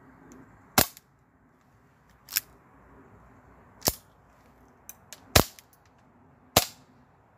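Novritsch SSP5 CO2 airsoft pistol fired five times into a chronograph, one sharp crack about every second and a half, with a couple of faint handling clicks between the third and fourth shots.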